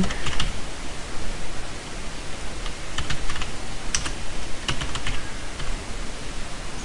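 Computer keyboard typing: scattered single keystrokes over a steady background hiss.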